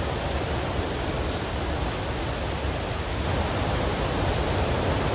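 Steady rushing of the Tully River's whitewater rapids heard through the rainforest, growing slightly louder toward the end.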